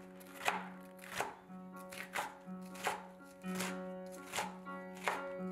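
Santoku knife slicing a red bell pepper into strips on a plastic cutting board: a crisp cut and tap on the board about every two-thirds of a second. Soft background music plays underneath.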